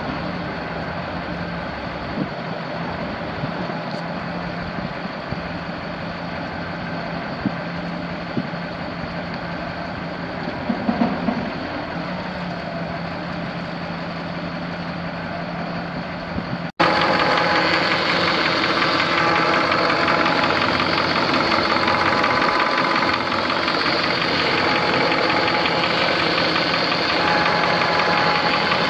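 A Chevrolet C7500 truck's V8 diesel engine idling steadily. About two-thirds of the way through, the sound cuts abruptly to a louder, fuller version of the engine running.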